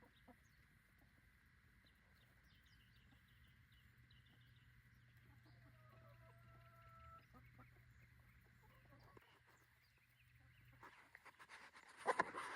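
Faint clucking of domestic hens over near silence, with a few short calls about six to seven seconds in. A few louder clicks and rustles come near the end.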